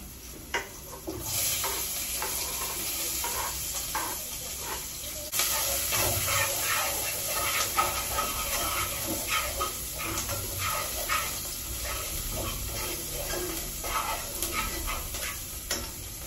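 Food sizzling in a hot pan while a utensil stirs and knocks against the pan. The sizzle starts about a second in and gets louder about five seconds in.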